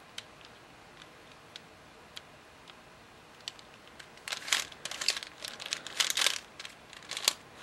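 Layers of a 3x3x4 fully functional cuboid twisty puzzle being turned by hand: a few faint clicks at first, then from about four seconds in a quick run of clicking turns as an algorithm is executed.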